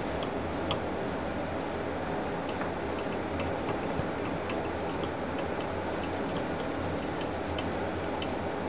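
Faint, irregular small clicks and ticks over a steady hiss and low hum, as old thermal paste is rubbed off with alcohol-soaked cotton swabs.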